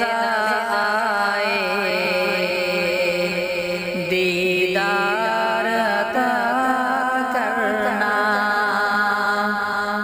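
A sung naat, an Urdu devotional song, playing as a ringtone: a single voice sings a slow melody with long, ornamented held notes over a steady drone.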